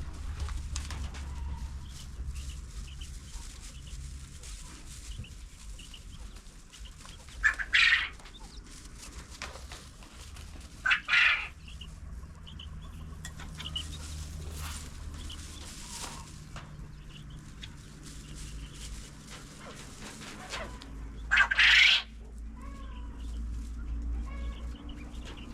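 Chickens clucking, with three loud calls spread through the stretch, the last one the longest, over a low steady rumble.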